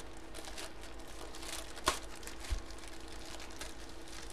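Plastic packaging crinkling and rustling as it is handled and opened, with a sharp click about two seconds in and a soft low bump just after.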